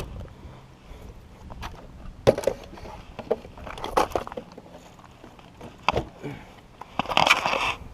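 Scattered clicks and knocks of a nitro RC truck being handled and looked over with its engine stopped, with a burst of rustling near the end.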